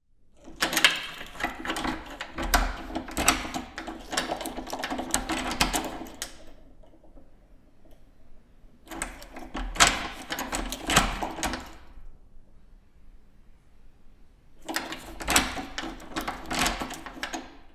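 Keys rattling and a key working a door lock, the lock mechanism clicking as it is locked and unlocked, in three bursts of quick clicks and rattles with short pauses between.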